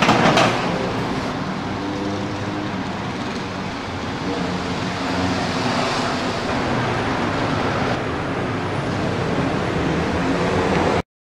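A brief clatter of the stainless-steel pan-support grid being set onto the gas burner top, then a steady rushing noise with a faint low hum that cuts off suddenly near the end.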